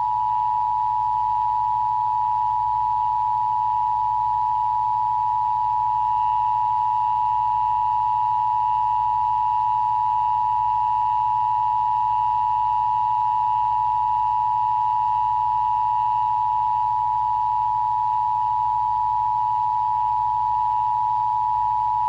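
Emergency Broadcast System Attention Signal: two tones of 853 and 960 Hz sounded together as one steady, unbroken dual tone, the signal sent during a test of the Emergency Broadcast System.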